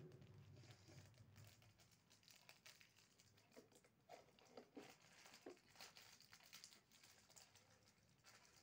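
Near silence with faint crinkling and scattered light clicks as small toy kitchen items are handled.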